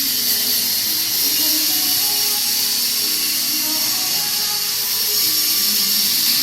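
CO2 (MIG) welding arc hissing steadily, with music playing faintly underneath.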